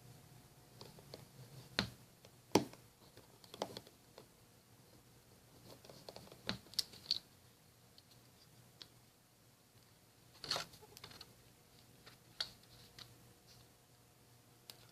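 Small, sparse clicks and taps of a precision screwdriver and fingers on an iPhone 4's casing as its two bottom screws are taken out, at irregular intervals with the sharpest tap about two and a half seconds in.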